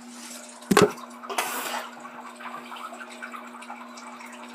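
Water running from a bathroom tap in a small room, over a steady hum. A sharp knock about a second in, then a brief splashing rush.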